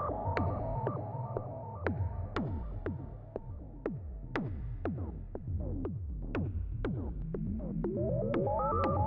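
Moog analog synthesizers playing electronic music: a steady bass drone under percussive hits about twice a second, each with a falling pitch sweep, and a pattern of short sequenced notes that thins out in the middle and returns strongly near the end.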